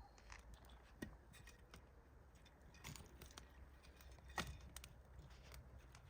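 Near silence with a few faint, scattered clicks and taps. The sharpest come about a second in and about four and a half seconds in.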